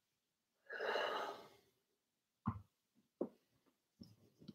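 A person shifting and reaching toward the recording device: a short breathy rustle about a second in, two soft knocks, then louder handling noise starting at the very end.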